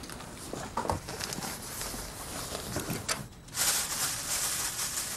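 People moving about: footsteps and rustling, with a louder stretch of rustling from about three and a half seconds in.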